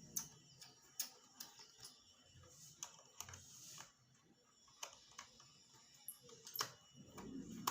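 Screwdriver undoing the small screws in a laptop's bottom cover: faint, irregular clicks of the driver turning in the screw heads.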